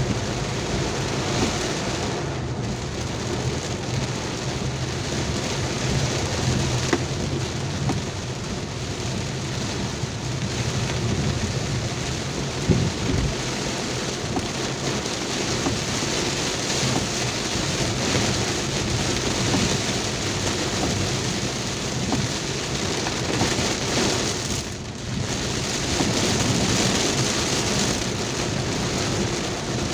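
Heavy rain falling steadily, with a low steady hum underneath and one brief thump about halfway through.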